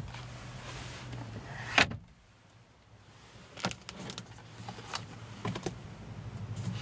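Light clicks and knocks of a Porsche 911's interior fittings being handled: the glovebox lid, then the sun visor flipped down and its vanity-mirror cover opened, with several short clicks about halfway through. A low steady hum runs underneath.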